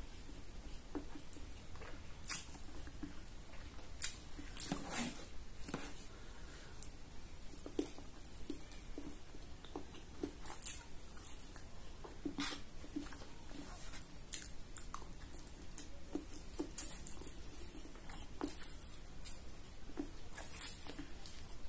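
Close-up eating sounds: instant fried noodles being slurped off a fork and chewed, with irregular wet mouth smacks and clicks.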